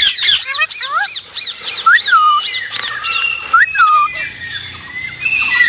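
Indian ringneck parrot calling: a rapid run of short, high squawks that rise and fall in pitch, several a second, broken by a couple of lower swooping calls and brief held whistle-like notes.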